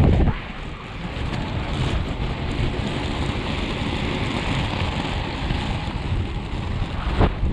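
Wind buffeting the action camera's microphone while skating at speed, over the steady rumble of three-wheel inline skate wheels rolling on tarmac. The buffeting is loudest right at the start and again near the end.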